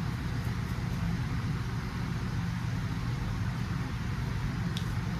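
Steady low hum with an even hiss of background noise, with a faint click near the end.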